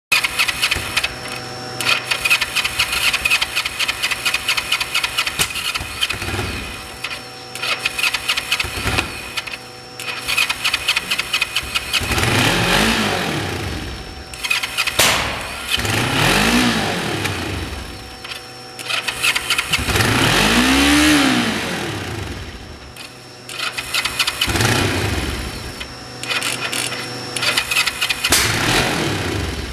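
Kawasaki Vulcan 500's parallel-twin engine running on the lift. It pulses fast and evenly at first, then is revved by hand about five times, the pitch rising and falling with each blip.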